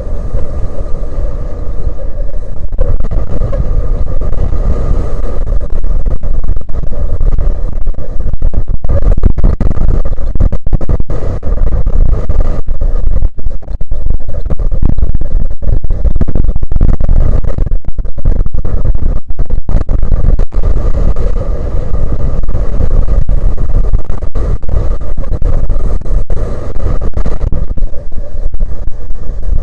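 Strong wind buffeting the microphone: a loud, continuous low rumble with many brief dropouts in the middle.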